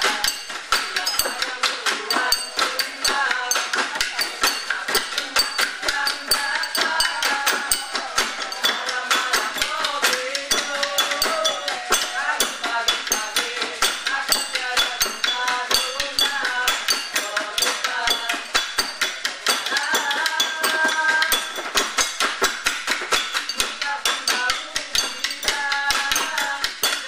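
Live percussion ensemble playing a fast, dense rhythm on drums and struck objects, with voices singing a melody over it.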